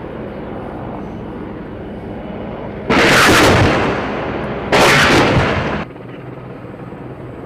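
AH-64 Apache attack helicopter firing: two loud bursts of weapons fire, each about a second long, about three and five seconds in, over the steady sound of the helicopter in flight.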